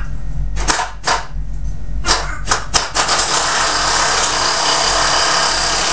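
Pneumatic impact wrench (air gun) loosening the nut on a riding mower's pulley: a few short bursts, then a continuous run from about three seconds in.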